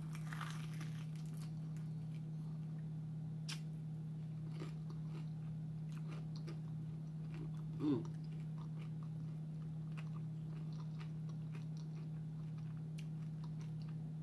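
Close-up chewing and biting of a crispy seafood egg roll: soft crunches and small mouth clicks over a steady low hum, with one louder moment about eight seconds in.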